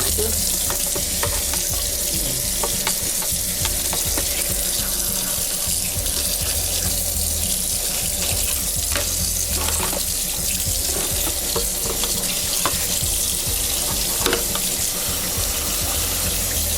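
Kitchen tap running steadily into a sink as a dishwasher filter is rinsed under the stream, with a few light knocks.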